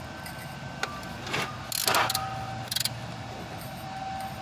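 Socket and ratchet working a broken bolt, built up with weld, out of an aluminum housing: a few irregular metal clicks and scraping sounds over a steady background hum.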